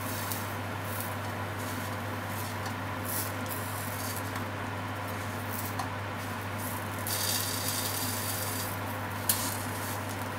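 Floured pork slices sizzling gently in a nonstick frying pan as they are turned with wooden chopsticks, the sizzle swelling for a couple of seconds about seven seconds in. A single sharp click of the chopsticks against the pan near the end, over a steady low hum.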